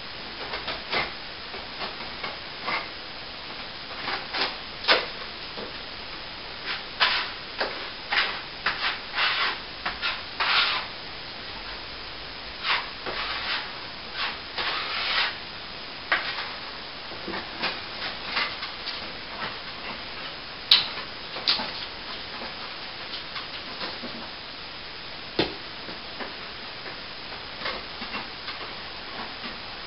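A hand tool rubbing and scraping over a plaster wall in short, irregular strokes, the work of dressing a repaired crack. A sharp click about two-thirds of the way through and a knock a few seconds later.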